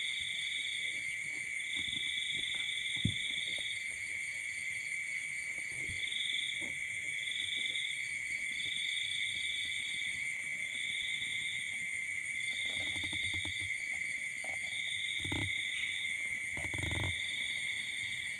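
A steady chorus of insects: one high trill held without a break, and a second, higher trill coming in phrases of about a second, on and off. A few soft bumps and thumps near the end.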